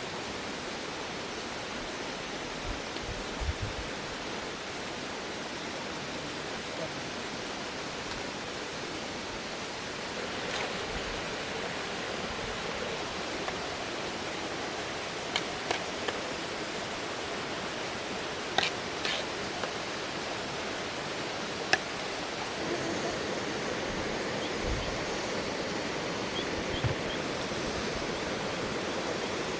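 Steady rushing noise, with a few sharp clicks and knocks scattered through the second half.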